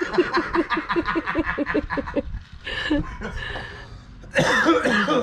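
A person laughing: a long run of quick, rhythmic laughs, then a few breathy laughs or coughs and a louder burst near the end.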